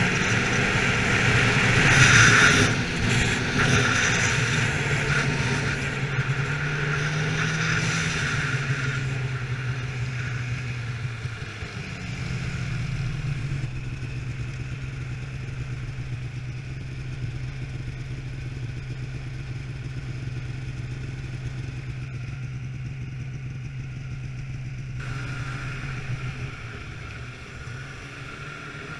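Polaris 800 two-stroke snowmobile engine running at speed, with a rush of wind and track noise for the first few seconds. It then slows to a steady low hum that fades near the end.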